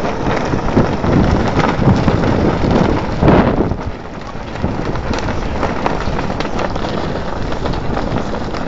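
Wind buffeting a mobile phone's microphone outdoors: a loud, rough rumble that eases a little about four seconds in.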